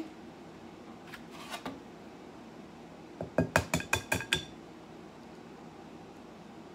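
An egg tapped against the rim of a glass mixing bowl to crack it: a quick run of about eight sharp, ringing clinks, with a few fainter clicks about a second earlier.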